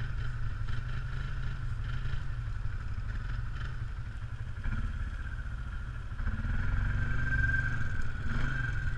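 ATV engine idling steadily, then picking up revs about six seconds in as the quad moves off.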